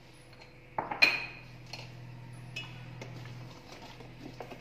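Metal utensils clinking against a stainless steel pot while sugar is stirred into thick almond milk: a sharp ringing clink about a second in, then lighter knocks and scrapes. A steady low hum runs underneath.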